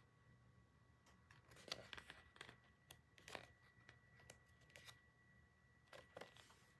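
Faint, scattered rustles and light taps of packaging and boxed merchandise being handled.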